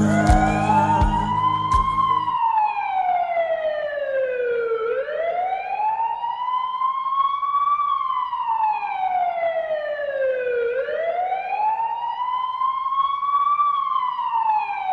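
A siren wailing: one tone sliding up over about three seconds and back down over about three, repeating in slow cycles. Background music cuts off about two seconds in, before the siren takes over.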